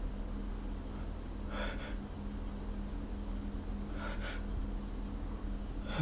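A man's short nasal sniffs, a quick pair about a second and a half in and another about four seconds in, from a nose tickle that is building toward a sneeze.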